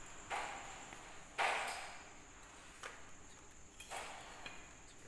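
Handling noise from pendant-lamp parts and their cable being moved about on a tiled floor: three short bursts of rustling and scraping, the loudest about a second and a half in, with a few light clicks.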